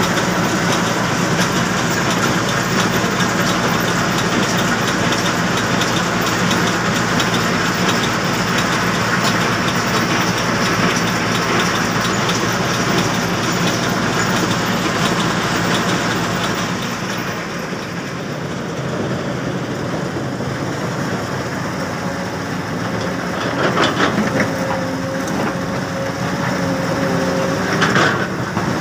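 Mobile crushing and screening plant for iron ore running: a steady, dense mechanical clatter from the vibrating screen, the conveyor and the ore moving through it. About two-thirds of the way through the noise drops and changes to a steadier machine hum with a few sharp clanks.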